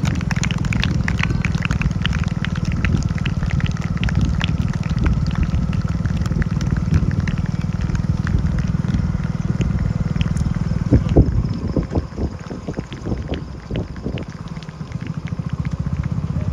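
A vehicle engine running steadily as it moves along the road, with the footsteps of a group of runners on asphalt over it. About eleven seconds in the engine noise drops back and the footfalls come through louder and more distinct.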